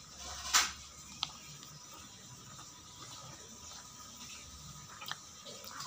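Eating sounds from a man with a spoon and a plate of rice and noodles: a short, sharp eating noise about half a second in, a light click a moment later, then quiet chewing.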